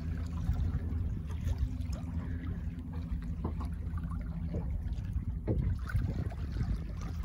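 Choppy sea water lapping and slapping against a small fishing boat's hull, with a steady low rumble of wind on the microphone.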